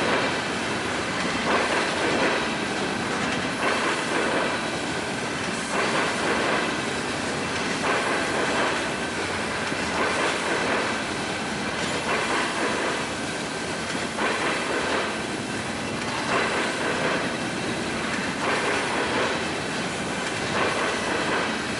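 A train rolling past, its wheels clattering on the rails with a repeating beat about every two seconds.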